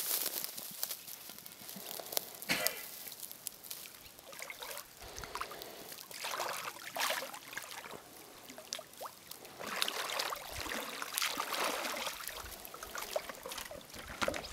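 Water trickling and sloshing in irregular small splashes as a swimmer in a wetsuit moves through shallow water at the surface.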